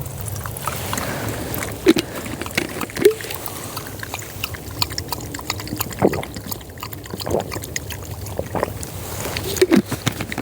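Irregular clicks, knocks and rustles of camping cooking gear being handled and set up for a meal, over a steady low rumble of wind.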